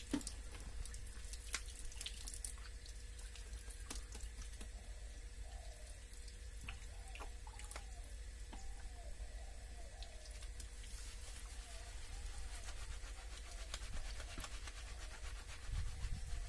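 Water dripping and splashing faintly from a wet bather onto a concrete floor, with scattered small clicks and handling sounds over a steady low rumble.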